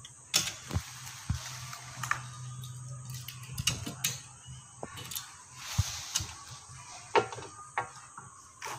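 Hot Wheels die-cast toy cars being handled and set down on a glass tabletop beside a clear plastic packaging tray: scattered sharp clicks and taps at irregular intervals. A low hum runs underneath for a couple of seconds near the start.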